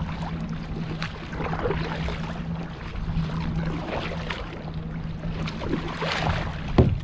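Kayak paddle strokes and water splashing and lapping against the kayak hull, over a steady low hum. A single sharp, loud knock comes near the end.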